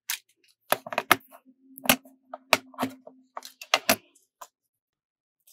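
Hard plastic album and storage cases being handled on a table: a series of sharp clicks and knocks, several in quick succession about a second in.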